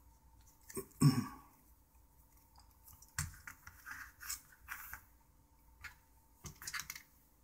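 Small plastic clicks and scrapes of a BlackBerry Storm 9530's bezel being pressed home onto its housing and the phone being handled, the loudest about a second in, a sharp single click a little past three seconds and a short run of clicks near the end as it is set down.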